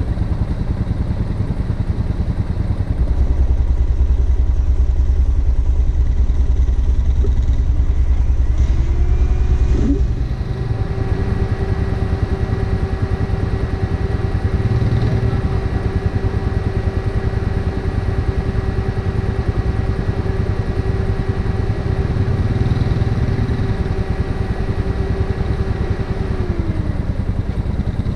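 ATV engines running at a slow crawl. A heavier low drone lasts for several seconds, then a steady whine sets in about a third of the way through and drops in pitch near the end.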